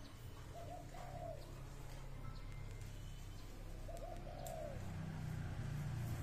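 A dove cooing twice, each a short phrase of arched notes. A low engine drone, likely a passing vehicle, builds up under it near the end.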